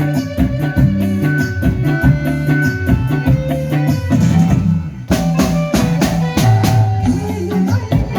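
Band music: drum kit, bass and guitar playing an instrumental passage with a steady beat, which thins out briefly about four seconds in before a run of heavy drum hits.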